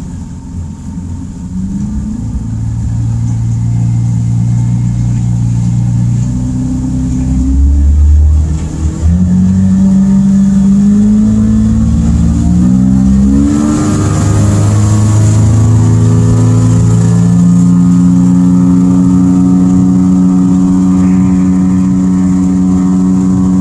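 Evinrude E-TEC 115 two-stroke outboard accelerating hard from no-wake speed as the boat gets up on plane: its pitch climbs over the first several seconds, shifts again around halfway, then holds steady at cruising speed.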